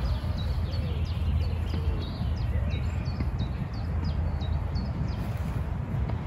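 Wind noise on the microphone, with a songbird calling in a rapid series of short high chirps, about three a second, that stops about five seconds in.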